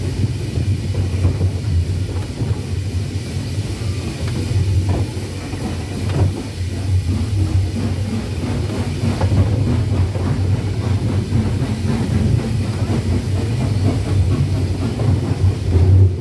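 Steam tank locomotive running along the track, heard from the footplate: a steady low rumble with scattered knocks and rattles from the wheels on the rails and the running gear.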